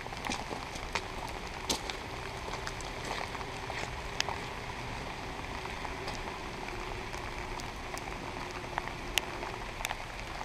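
Steady rain falling, with scattered drops ticking sharply close by.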